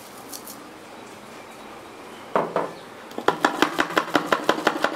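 Crushed eggshell being tapped out of a small glass through a funnel into a plastic bottle. There is one knock about halfway, then a quick even run of light taps, about six a second, near the end.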